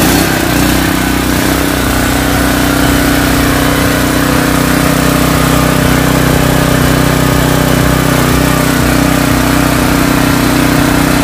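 Extreme ET4000 inverter generator's gasoline engine running steadily just after being recoil-started, settling to an even speed within the first half second.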